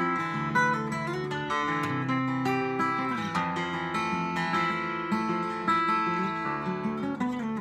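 Steel-string acoustic guitar played fingerstyle, a plucked melody over ringing low bass notes, in an open DADEAE tuning.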